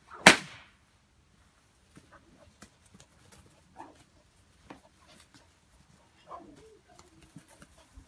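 A bullwhip cracks once, sharp and loud, about a quarter second in. After it come scattered faint ticks and rustles.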